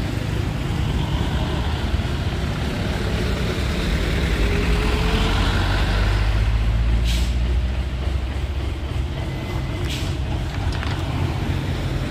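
Heavy diesel recovery trucks running hard under load as they pull an overturned truck with steel cables, the engine sound swelling a little toward the middle. Two short hisses cut in about seven and ten seconds in.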